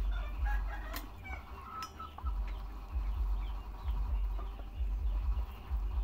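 Chickens clucking softly as they feed, with short chirping calls mostly in the first two seconds and a couple of sharp clicks, over an uneven low rumble.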